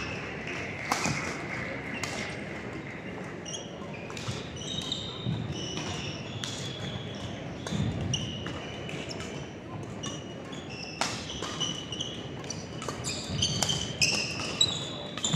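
Badminton doubles play on an indoor court: court shoes squeaking on the floor and sharp racket hits on the shuttlecock at irregular intervals, more of them near the end, over a low murmur of voices in the hall.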